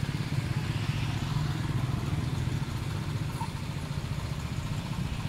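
An engine idling steadily, a low even rumble.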